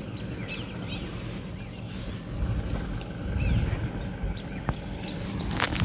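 Steady high-pitched insect chirping, pulsing evenly several times a second, over a low rumble. Near the end come louder sudden scuffs and knocks.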